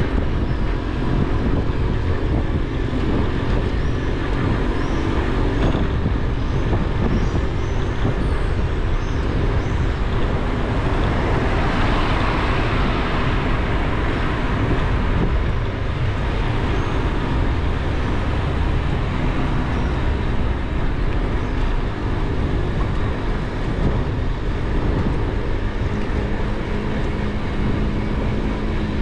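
Steady rumble of road noise and wind buffeting the microphone from a moving vehicle driving along a street. The hiss swells and fades about halfway through.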